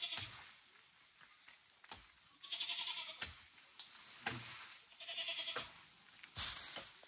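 Goats bleating: several wavering calls a couple of seconds apart, with a few sharp knocks in between.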